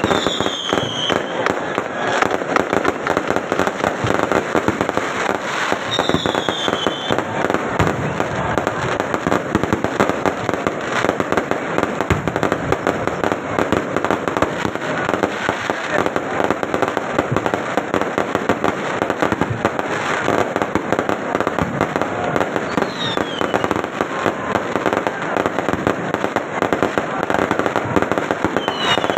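A fireworks display going off nonstop: a dense run of rapid bangs and crackling, with a few falling whistles now and then.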